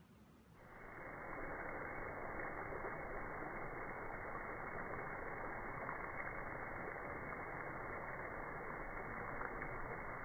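Steady rush of water spraying in a toy car wash, starting about a second in.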